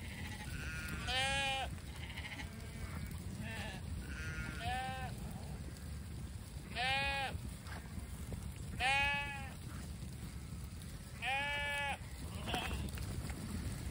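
A mob of sheep on the move, several bleating in turn: four loud bleats spaced a few seconds apart, each lasting under a second, with fainter bleats between them, over a steady low rumble.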